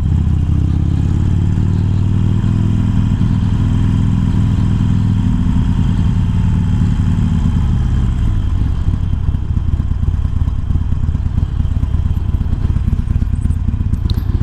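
Harley-Davidson Iron's air-cooled V-twin, fitted with a 1200 kit and Screamin' Eagle slip-on exhausts, running at steady throttle on the road. About eight seconds in the throttle is eased off and it drops to a lower, uneven rumble as the bike slows.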